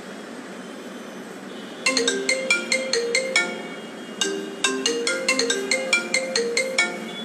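A phone ringtone playing: a bright, marimba-like tune of short notes that starts about two seconds in and repeats its phrase, over faint room noise.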